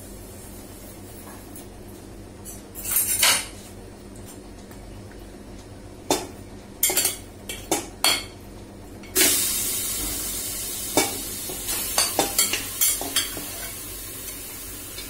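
Marinated mutton chops being tipped from a bowl into an aluminium pressure cooker, with sharp clinks and knocks of the bowl and utensil against the metal pot. About nine seconds in, a hiss starts suddenly and slowly fades as the meat sizzles in the hot cooker, with more knocks over it.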